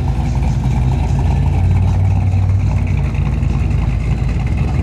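Engine and exhaust of a lowered 1990s GM full-size pickup rolling slowly past at low revs: a steady, low-pitched engine note.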